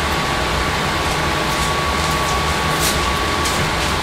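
A silicone spatula spreading chili over cut hot dogs in a glass baking dish, with a few faint short scrapes, over a steady hiss with a thin high hum that is the loudest thing throughout.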